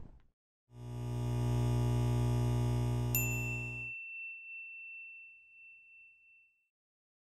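Electronic title sting: a sustained synthesized chord swells in, holds and fades, and about three seconds in a single bright, bell-like ding strikes over it and rings on after the chord has died away.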